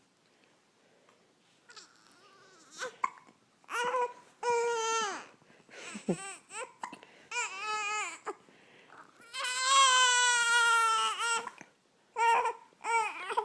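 A baby with hiccups fussing and crying in short wails, the longest lasting about two seconds past the middle, with a few quick sharp sounds from the hiccups among them.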